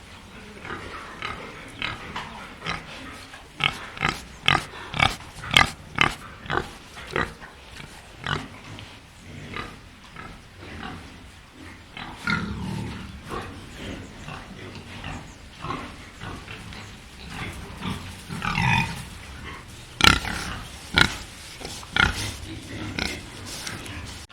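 An animal's short calls repeated in quick succession, clustered in a fast run about four to seven seconds in and again near the end.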